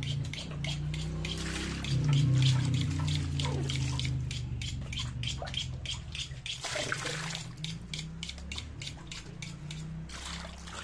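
Running, splashing water with a quick run of sharp clicks, about four a second, over a low steady hum.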